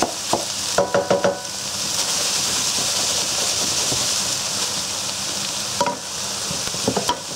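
Strips of Geschnetzeltes with onions and garlic frying in olive oil in a deep pan, a steady sizzle, while a wooden spatula stirs them. The spatula scrapes and knocks against the pan, with a quick clatter of knocks about a second in and a few more near the end.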